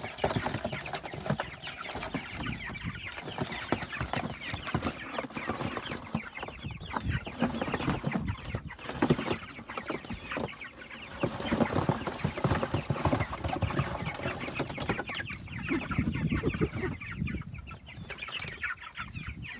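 A flock of three-week-old Cornish Cross chicks peeping continuously, many short calls overlapping.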